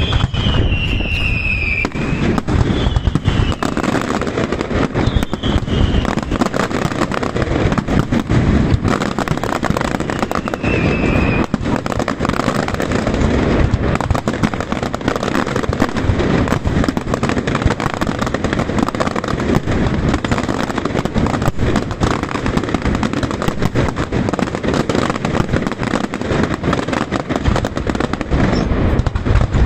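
Aerial fireworks display going off in a dense, continuous barrage of bangs and crackling. A few short falling whistles cut through in the first dozen seconds.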